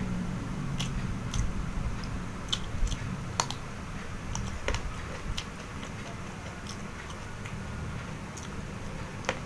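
Close-miked chewing, with irregular crisp crunches and clicks as raw vegetables are bitten and chewed, most of them in the first half.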